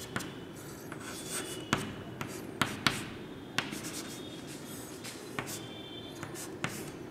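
Chalk writing on a chalkboard: scratching strokes, with several sharp taps of the chalk against the board spread through.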